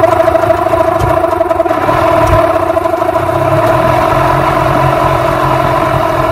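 Yamaha 15 hp outboard motor running just after a pull start. For the first couple of seconds it is rough and uneven, then it settles into a steady, slightly high idle. The early stumbling is a lean run from starting without the choke on.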